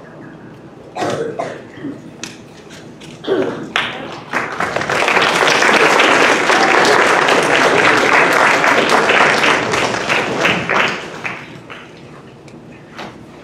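Audience applause: a few scattered claps and voices at first, then clapping that swells about four seconds in and fades out near the end.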